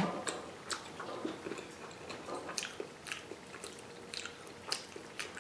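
Close-miked chewing of a mouthful of rice and tender meat: wet mouth smacks and small clicks, coming irregularly several times a second.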